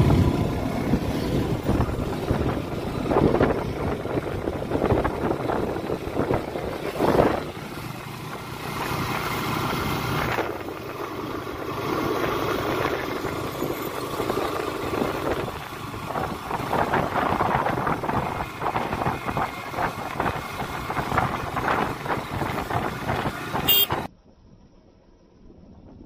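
KTM sport motorcycle ridden slowly: engine running under wind and road noise on the rider's microphone, rising and falling in level. The sound drops off suddenly near the end.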